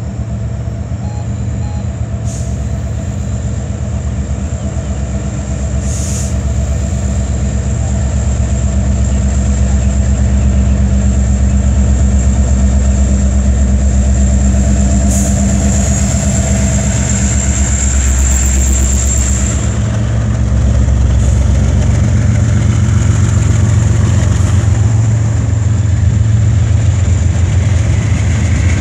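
Several diesel-electric freight locomotives of a CN freight train approaching and passing close by, their engines running with a deep, steady sound that grows louder over the first ten seconds. The sound dips briefly about twenty seconds in, then swells again as further trailing locomotives go by.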